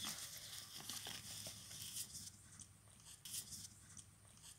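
Faint, irregular scratchy rustling and crackling: a string of short scrapes and crinkles over a low steady background.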